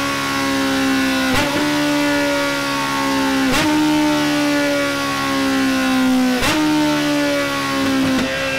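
Kawasaki Z900's 948 cc inline-four engine running hard through a Delkevic X-Oval titanium exhaust with a full de-cat system. The engine note sinks slowly in pitch and jumps back up four times, each time with a sharp crack.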